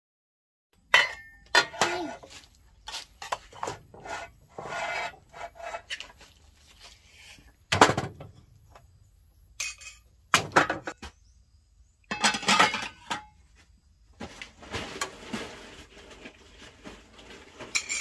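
Kitchenware clatter: a metal spoon scraping and knocking in a pot of cooked rice, with plates, a pot lid and a stainless pan clinking, and a ladle dipping into a pot of soup near the end. Sharp knocks and clinks come irregularly, with short scrapes between them.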